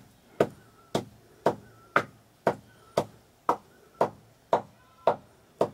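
Chopping on a cutting board: steady strokes about two a second, each with a short ring.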